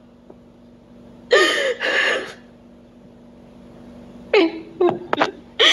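A woman sobbing: two breathy sobs about a second in, then another sob and a few short catches of breath near the end.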